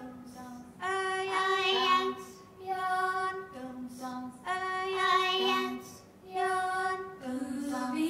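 Female voices singing a cappella in imitation of gulls' calls: about four phrases of held, wavering notes, with voices overlapping at different pitches, as in a flock of gulls calling.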